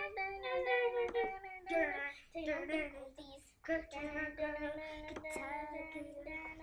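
A high singing voice with no words spoken, sung in long held notes that waver slightly. The last note is held steady for about three seconds. A few sharp clicks fall in between.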